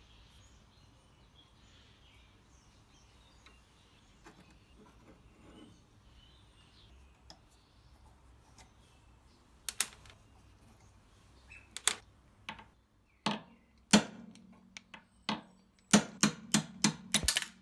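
Hammer blows on a steel pin punch, driving a pin out of a rusty iron scale beam held in a vise. A few spaced, sharp metallic strikes with a short ring are followed near the end by a quick run of about six strikes. Before them there are only faint handling clicks.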